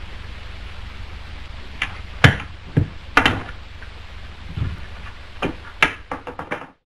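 Pool balls clicking against each other, with a few duller thuds and a quick run of clicks near the end, over the steady hiss of an old film soundtrack. It cuts off suddenly just before the end.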